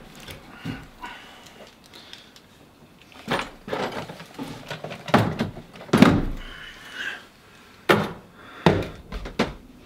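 Irregular knocks and thuds, about five from a third of the way in and the loudest near the middle: footsteps and bumps of someone climbing a ladder onto a wooden boat and setting down a plastic toolbox.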